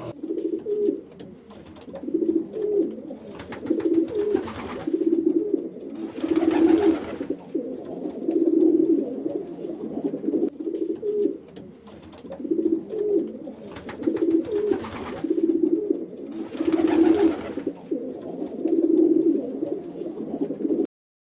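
A bird cooing over and over, short low calls coming about once a second.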